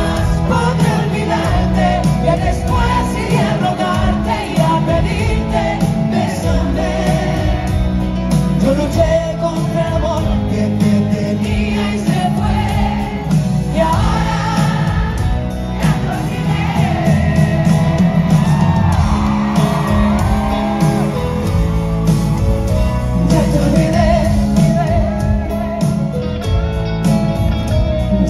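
Live band music with guitars, and a woman singing lead over it.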